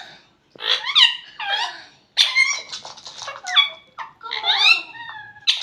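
Pet ring-necked parakeet vocalizing: a run of squeaky calls that slide up and down in pitch, in about five bursts.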